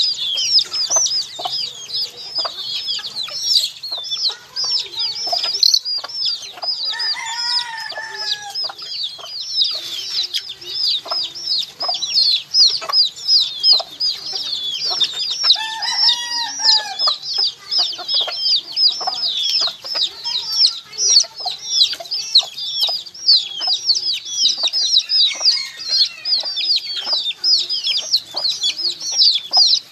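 A brood of baby chicks peeping continuously, many short, high, downward-sliding peeps overlapping. Twice, about a quarter of the way in and again around halfway, a lower, longer arching call of about a second sounds under the peeping.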